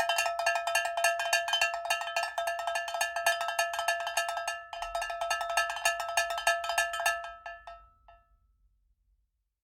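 A small bell-like metal object struck rapidly over and over, each strike ringing at the same pitch. The strikes stop about seven to eight seconds in and the ringing fades out.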